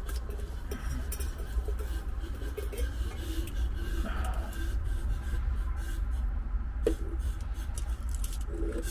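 Light metallic clinks and knocks as a Kelly Kettle is lifted off its fire base, over a steady low rumble.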